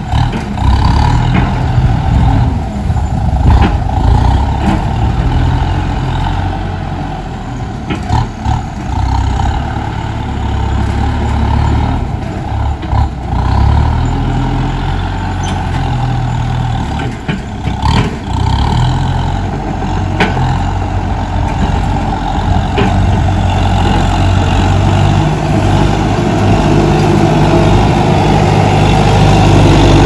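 Kubota tractor's diesel engine running under load while its front dozer blade pushes and levels soil, with a few short knocks. The engine grows louder near the end as the tractor drives up close.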